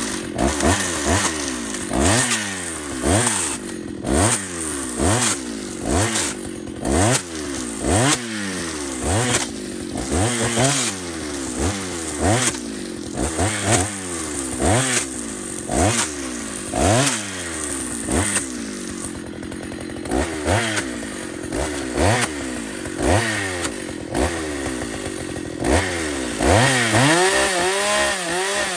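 Two-stroke chainsaw revved again and again, roughly once a second, each time rising to high speed and dropping back to idle. Near the end the engine is held at high speed for a couple of seconds with a wavering pitch.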